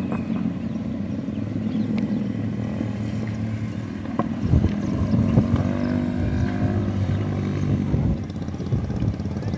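Motorcycle engines running as bikes ride by one after another, the revs rising and falling.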